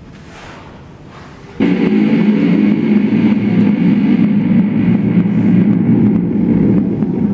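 Experimental noise music: a quiet low drone, then about a second and a half in a loud, distorted electric guitar drone cuts in abruptly and holds steady.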